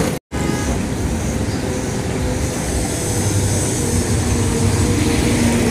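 Busy street traffic: motorcycle and auto-rickshaw engines running close by, with a steady engine drone growing stronger in the second half. The sound cuts out for a moment just after the start.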